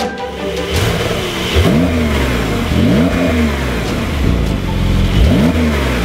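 Porsche 911 Carrera S (992) twin-turbo 3.0-litre flat-six accelerating hard; its note climbs and then drops sharply three times as the eight-speed PDK changes gear.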